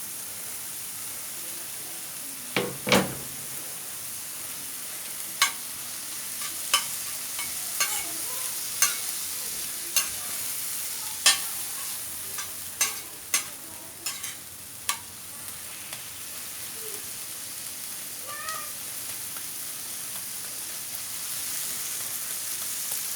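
Chopped bell peppers and other vegetables sizzling in oil in a frying pan, with a steady hiss. A utensil knocks and scrapes against the pan about a dozen times, from a few seconds in until about two-thirds of the way through.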